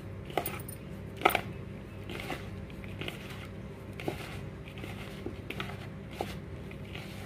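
A hand rubbing oil into dry flour and semolina in a plastic bowl, a soft scraping and rustling, with bangles on the wrist clinking against each other and the bowl several times, the sharpest clink about a second in. A low steady hum lies underneath.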